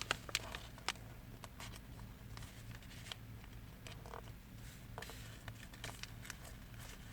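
Square origami paper being folded in half and creased by hand: faint scattered rustles and light ticks of paper on a table, over a low steady hum.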